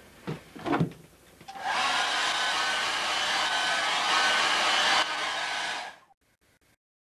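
Handheld hair dryer switched on about a second and a half in, spinning up and running with a steady rushing blow, then dropping slightly near five seconds and cutting off about a second later. Two short knocks come before it starts.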